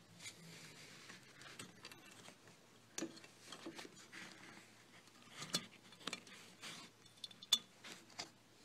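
Faint, irregular light clicks and taps of hands handling a convertible top's metal frame bow and webbing strap, the sharpest click near the end.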